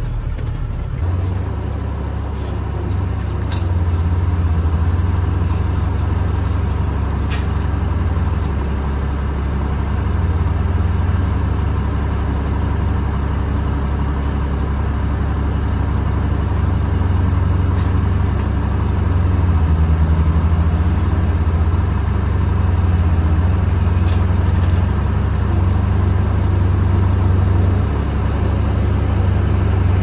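Large truck's engine running, heard from inside the cab as a steady low drone, with a few faint clicks.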